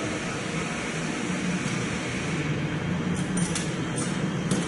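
Large diesel engine running steadily: a low, even drone with a hiss over it, and a few short ticks near the end.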